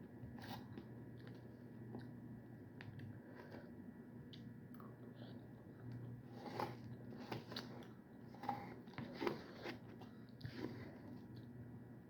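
A person eating close to the microphone: chewing and biting, with scattered short crunchy clicks that grow busier in the second half.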